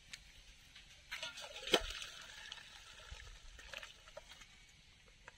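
Boiled ash gourd pieces and their hot water poured from an aluminium pot into a steel colander to drain: a splashing pour starts about a second in and tapers off after a few seconds, with one sharp metal clink near its start.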